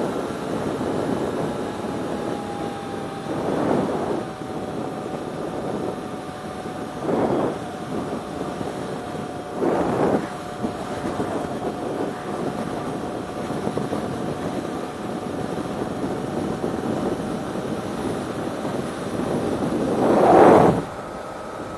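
Motorcycle riding at road speed: wind rush over a steady engine note, with four brief whooshes of oncoming vehicles passing, the loudest about twenty seconds in. The sound drops suddenly just before the end.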